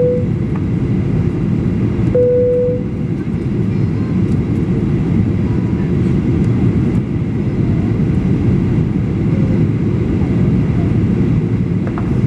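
Steady cabin noise of a Boeing 737-800 on approach: a dense low rumble of engines and airflow. A short steady tone sounds right at the start and again about two seconds in.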